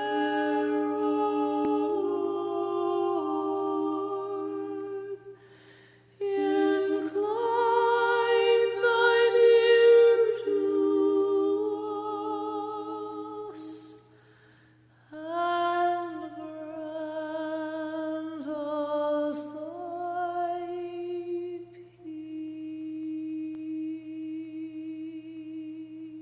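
A single voice humming a slow melody unaccompanied, in long phrases with vibrato, broken by two short pauses for breath and ending on a long held note.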